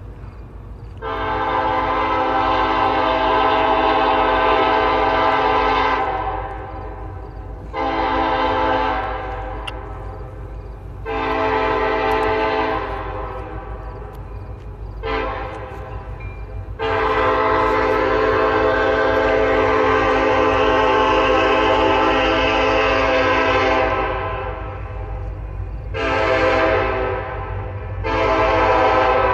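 Nathan Airchime K5LLA five-chime air horn on an SD70ACe locomotive sounding a series of blasts. First a long blast, then two shorter ones, a brief toot, a long blast of about seven seconds, and two short blasts near the end, all over a steady low rumble.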